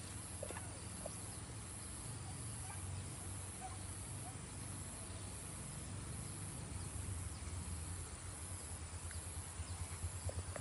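Steady high-pitched drone of insects in the surrounding vegetation, with a low rumble underneath.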